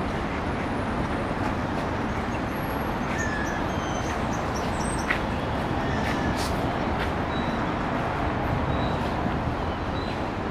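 Steady city road-traffic noise, with a few faint short high chirps and ticks now and then.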